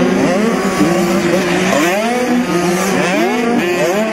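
Several dirt bike engines revving hard through the gears, their pitch climbing and dropping back again and again with each shift, the overlapping sweeps of one bike after another running on.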